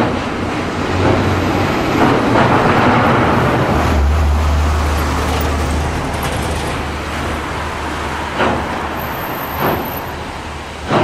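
China Railways SY-class 2-8-2 steam locomotive working a freight train, with a continuous rumble and sharp exhaust beats at uneven intervals, coming about every second or so near the end.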